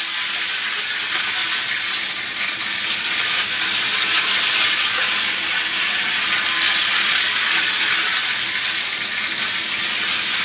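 Hornby Dublo three-rail model locomotive running around a loop of track: a steady, high rushing noise from its electric motor and wheels on the metal rails, with a faint low hum underneath.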